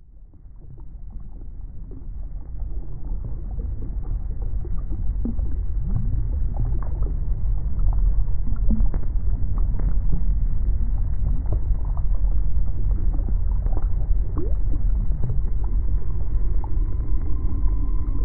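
Designed deep-sea ambience: a deep, muffled rumble fades in over the first few seconds, with scattered short creaks and groans through it. A steady droning tone joins near the end.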